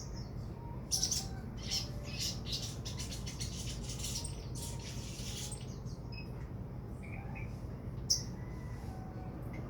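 A sogon bird calling with sharp, high chirps, breaking into a fast run of rapid chattering chirps in the middle before going back to scattered single calls, over a steady low hum.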